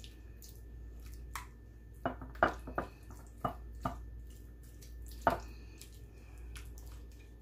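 A silicone basting brush dabs a thick yogurt marinade onto raw chicken skewers, giving a scatter of soft wet squishes and small clicks, with a few sharper taps as the brush meets the dish and bowl.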